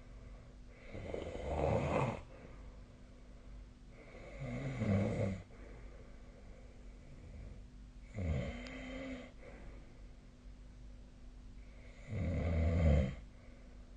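A sleeping person snoring: four rough snores about four seconds apart, each lasting a second or so.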